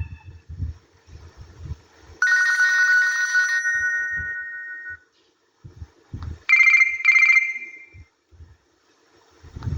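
Nokia N95 phone alert tones: an electronic chime about two seconds in that fades over about three seconds, then two quick trilling rings about a second later.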